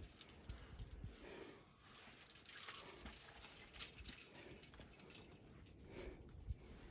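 A climber breathing, a breath about every second and a half, with rustling of clothing and pack against rock and a few light clinks of climbing gear, the sharpest about four seconds in.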